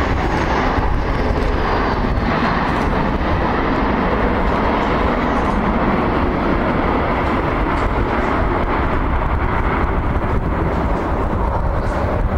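Jet engines of a Boeing 737-800 airliner making a steady, loud rushing noise as it touches down and rolls out on the runway. A faint falling whine runs through the first two seconds.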